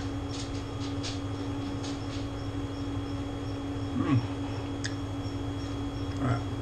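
A man chewing a mouthful of steak, with faint wet mouth clicks, over the steady hum of a room air conditioner. A short falling 'mmm' about four seconds in and another brief murmur near the end.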